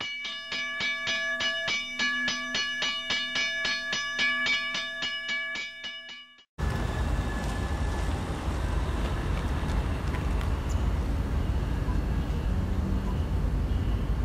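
A railroad bell ringing in quick, even strokes, about three a second, typical of a street-running locomotive's or a grade crossing's warning bell. It cuts off abruptly about six and a half seconds in and gives way to a steady low outdoor rumble.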